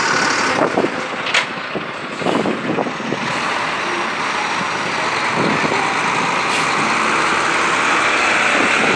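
Heavy diesel lorries, a Volvo eight-wheel tipper and a Renault tractor unit, driving slowly past one after another with engines running steadily. A brief hiss sounds about a second and a half in.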